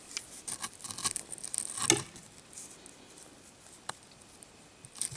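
Scattered small crunches, scrapes and sticky tearing as a baked s'more of graham cracker, marshmallow and chocolate is picked apart, busiest in the first two seconds, with a single sharp click near four seconds.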